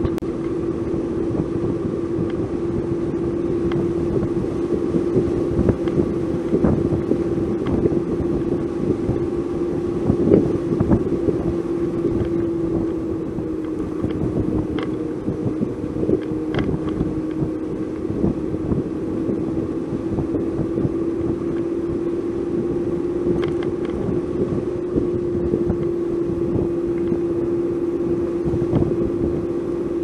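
Vehicle engine running steadily while driving at road speed, a constant hum that dips slightly in pitch about midway and comes back up, with wind noise on the microphone.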